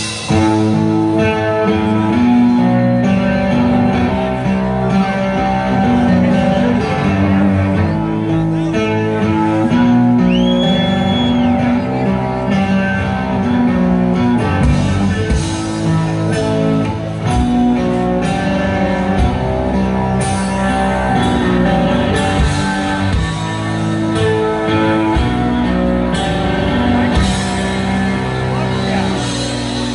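Live rock band playing through a large PA, dominated by electric guitar with held notes and chords over drums, as heard from within the audience.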